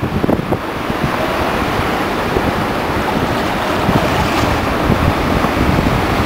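Steady wind buffeting the microphone over open water, with a splash from a large hooked fish thrashing at the surface beside an inflatable boat about four seconds in.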